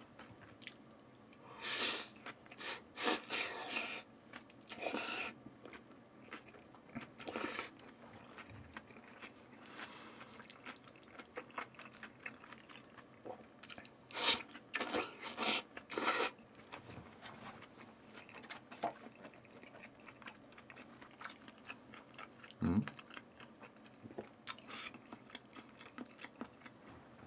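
Close-miked eating sounds: wet slurps and chewing of raw salmon strips and sliced onion, coming in irregular clusters with quieter stretches between.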